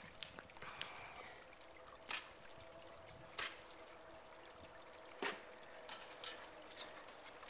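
Ice tools striking the ice of a frozen waterfall, three sharp chops spaced a second or two apart, over a faint steady trickle.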